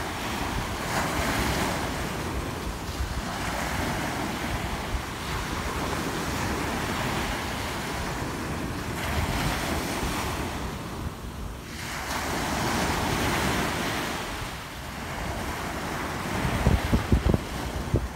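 Ocean surf: small waves breaking and washing up the shore in repeated swells that rise and ease every few seconds. Wind buffets the microphone with a low rumble, gusting hardest near the end.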